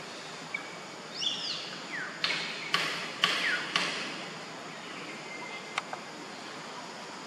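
A group of common hill mynas calling. There is an arched whistle that rises and falls about a second in, then four loud, harsh calls with falling whistles among them over the next few seconds, and fainter whistles after.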